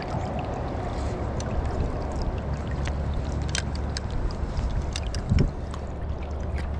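River water running and lapping around a landing net held in the current, with many small splashes and drips over a low steady rumble. A dull thump about five seconds in.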